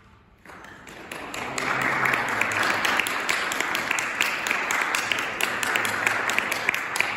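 Audience applause breaking out about half a second in and swelling to steady, dense clapping within about a second.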